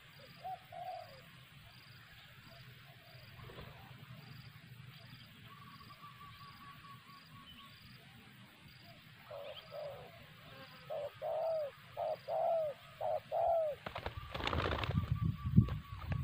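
Spotted doves cooing: a short coo near the start, then a run of about six arching coos in the second half. About two seconds before the end comes a loud flurry of wing-flapping as a dove flies in over the log, the loudest sound.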